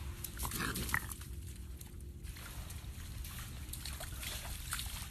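Soundtrack of an animal phone video: short animal noises over scattered clicks and rustling, which cut off suddenly at the end.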